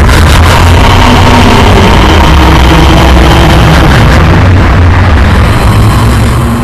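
Loud, harsh horror sound effect: a dense noisy blast over a steady low droning rumble, starting abruptly and tapering off near the end.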